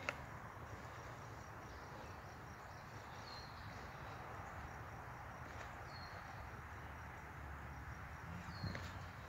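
Quiet woodland ambience: a faint, high, thin pulsing trill comes and goes, and a short high chirp repeats about three times, every two to three seconds.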